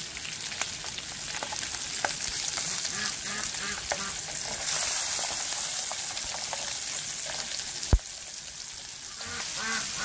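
Crawfish frying in butter in a stainless steel pot, a steady sizzle that swells about five seconds in. Chopsticks stirring and clicking against the pot, with one sharp knock near eight seconds.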